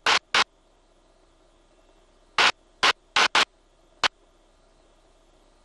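Seven short, sharp bursts of hiss, like static breaking in on an aircraft intercom, over a faint steady background: two near the start and a cluster of five from about two and a half to four seconds in.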